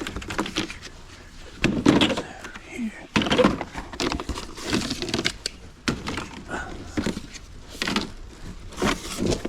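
Hollow plastic resin shed panels being shifted and handled, knocking and clattering against each other in an irregular run of thunks, with several louder knocks.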